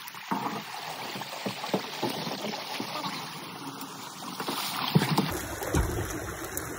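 Shallow creek water rushing and splashing around a jon boat as it is hauled through a rocky riffle, with scattered knocks and bumps. The sharpest knock comes about five seconds in.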